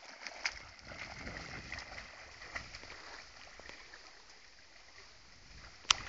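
A Chesapeake Bay Retriever puppy swimming, its paddling making faint splashing in the water that fades as it moves into the reeds. A brief sharp click near the end.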